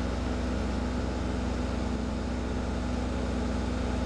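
Fire engine's diesel engine running steadily at idle, a low even hum with a fine regular pulse.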